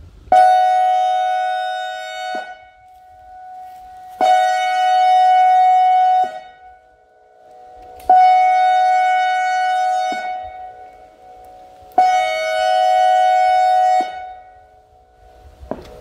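ACA Alertronic AR-1600 electronic outdoor warning siren sounding a pulsed signal. It gives four blasts of a steady, horn-like tone, each about two seconds long, starting and stopping abruptly, with about two seconds between them.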